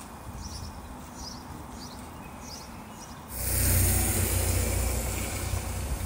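Wet-street outdoor ambience with a bird chirping about every 0.7 seconds. About three seconds in, the sound jumps to a much louder hiss with a low rumble, tyres on a wet road, peaking at once and then easing off slowly.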